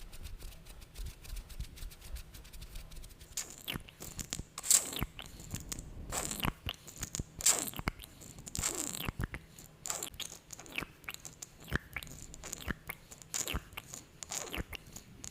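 Close-miked sticky, glossy lip and mouth sounds: irregular wet smacks and clicks as the lips part. They begin about three and a half seconds in, after a quieter start.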